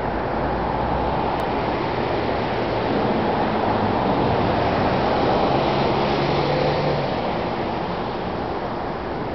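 Road traffic passing, a steady rush of tyres and engines that swells a few seconds in and eases off near the end.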